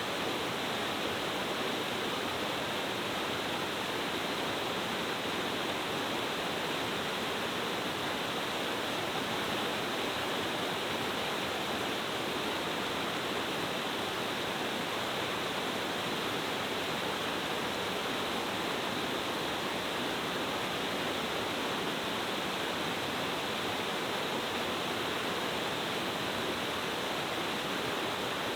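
Mountain-stream waterfall falling in several tiers, its water rushing steadily and evenly with no let-up.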